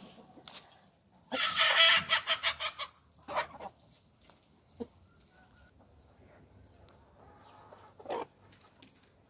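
Chickens calling: a loud run of rapid, repeated calls from about one to three seconds in, then a few single clucks, one near the end.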